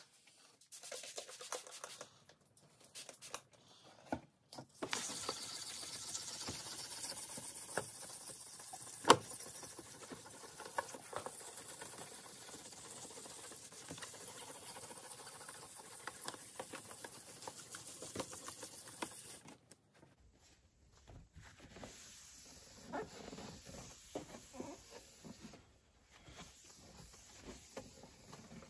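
Wet sandpaper scrubbing in circles on a red plastic lightbar lens, a steady scratchy hiss with one sharp click about nine seconds in. After about twenty seconds it gives way to softer, patchier rubbing as a cloth wipes the wet lens.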